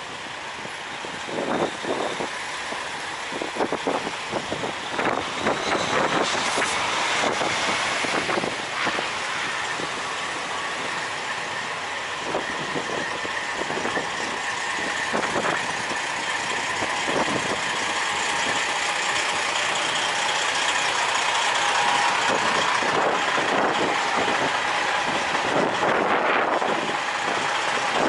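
Wind buffeting the microphone in irregular gusts, over the steady running of idling truck engines.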